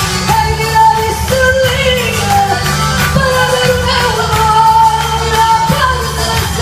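A woman singing live into a handheld microphone over amplified music with a steady bass line, holding long sung notes.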